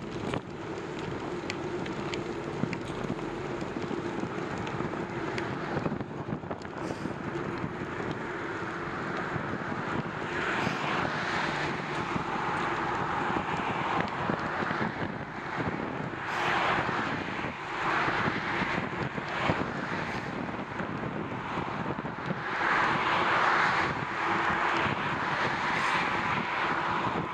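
Steady rush of wind over the microphone and road noise while riding a bicycle beside highway traffic, with passing vehicles swelling louder several times, near ten, sixteen and twenty-two seconds in.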